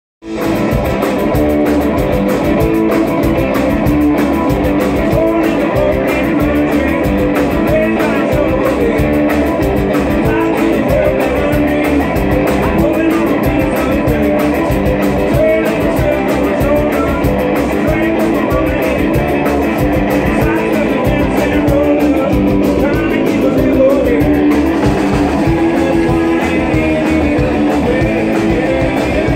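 Live rock and roll band playing: electric guitar, upright double bass and a drum kit, with a steady drum beat throughout.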